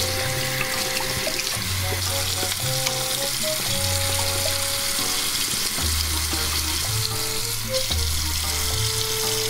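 Tap water running steadily into a bathroom sink, splashing over a hand and a dog's paws as they are rinsed. Background music with a slow, stepping bassline plays underneath.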